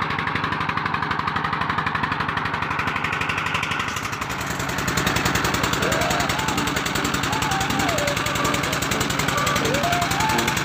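A wooden fishing boat's inboard diesel engine running steadily. About four seconds in the sound changes abruptly to an even, fast thumping beat, with wavering calls heard several times over it.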